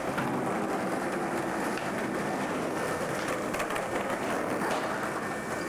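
Skateboard wheels rolling over paving stones: a steady rumble with a few sharp clicks as the wheels cross the joints.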